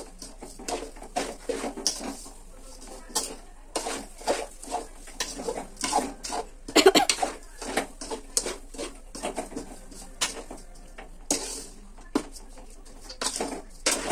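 Metal spoon scraping and clinking against the side and bottom of a large metal kadai while stirring a crumbly mix of roasted semolina, sugar and milk. The scrapes and knocks come irregularly, several a second.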